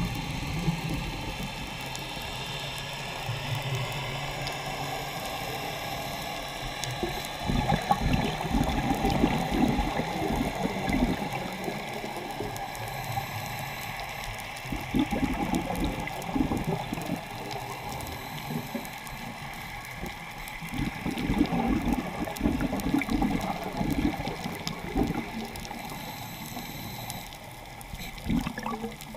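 Underwater sound of a scuba diver's breathing through a regulator: a bubbling rumble of exhaled bubbles comes in bursts every few seconds, with quieter stretches between breaths.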